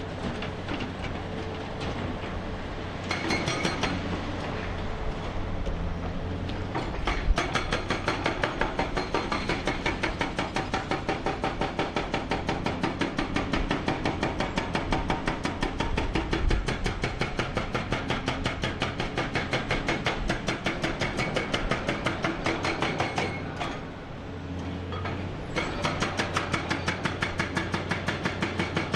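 Tracks of a Hyundai R1200-9 crawler excavator clattering in a fast, even rhythm of about four clanks a second as it travels, over the steady hum of its diesel engine. The clatter stops briefly about three-quarters of the way through, then starts again.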